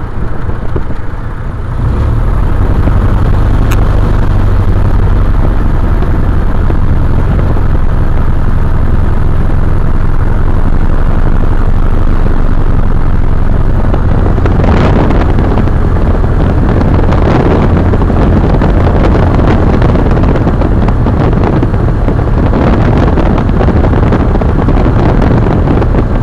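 Cub light plane's piston engine and propeller running while taxiing, heard from inside the cockpit: a steady low drone that grows louder about two seconds in and turns noisier about halfway through.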